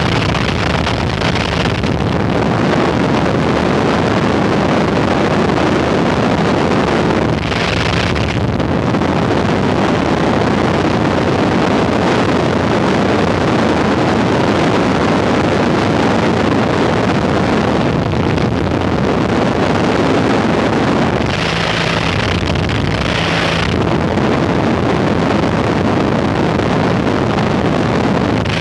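Wind rushing past the open door of a small high-wing jump plane in flight, buffeting the microphone, with the aircraft engine's drone underneath. The rush eases briefly twice.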